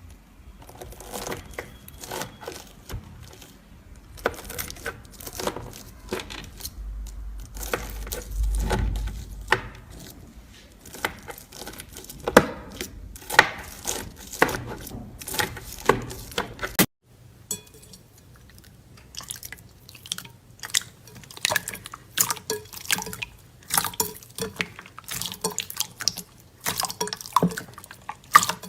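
Slime being squeezed, poked and mixed by hand: wet squelching with many small sticky clicks and pops. The sound cuts off abruptly about two-thirds of the way through and picks up again with the same kind of sticky popping.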